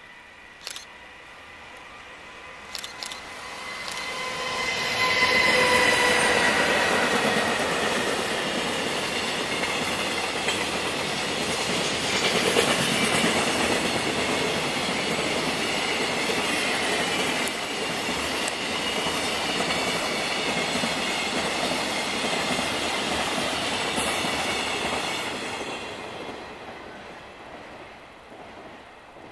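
A container freight train passing, hauled by a JR Freight EF210 electric locomotive with a dead-in-tow EF66 coupled behind it. The running noise of wheels on rail builds over the first few seconds, holds steady for about twenty seconds, then fades near the end. A whine that drops slightly in pitch comes in as the locomotives go by, and a few sharp clicks sound in the first three seconds.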